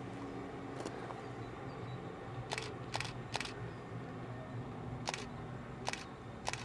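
Electric railcar of the Bayerische Zugspitzbahn approaching slowly, a low steady hum with several tones. Seven sharp clicks stand out over it, three in quick succession about two and a half to three and a half seconds in.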